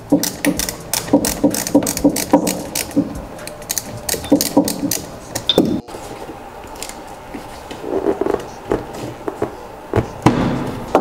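Rapid, uneven clicking of a worm-drive hose clamp being unscrewed on a car's air-intake elbow. In the second half come sparser knocks and rubbing as the rubber intake boot is worked loose.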